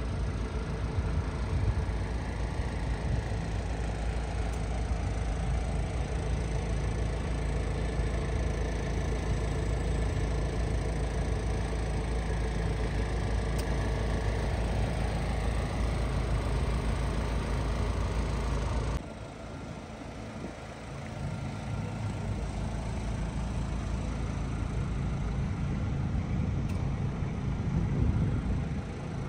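Ford Transit Courier's TDCi diesel engine idling steadily. The sound drops sharply in level and changes in tone about two-thirds of the way through, then carries on steady.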